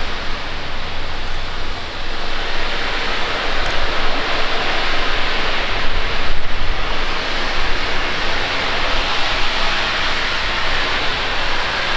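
LMS Black 5 4-6-0 steam locomotive 44871 venting steam: a loud, steady hiss.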